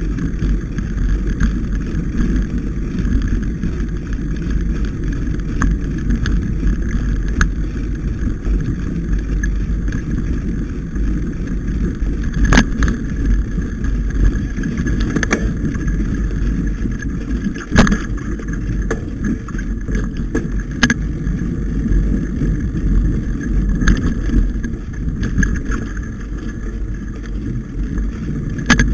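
Mountain bike riding a snowy, muddy woodland trail, heard through a camera mounted on the bike or rider: a steady low rumble of tyres and vibration, with several sharp knocks as the bike jolts over bumps.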